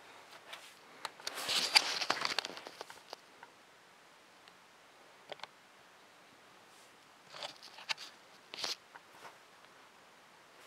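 Handling noise: a burst of rustling and clicking about one to three seconds in, then a few short, sharp clicks and taps later on.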